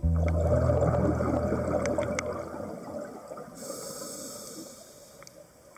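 Underwater camera audio of a scuba diver breathing through a regulator, with bubbling and a few sharp clicks. A low hum stops about two and a half seconds in, and a hiss starts just past halfway as the sound fades out.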